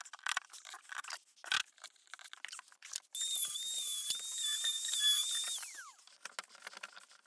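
Scattered scrapes and taps, then about three seconds in a Rotozip spiral saw runs with a steady high whine for about two and a half seconds while cutting an opening in drywall. It then winds down, the whine falling in pitch, and a few more scrapes and taps follow.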